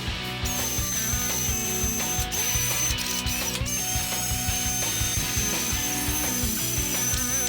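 Rapid mechanical clicking over background music.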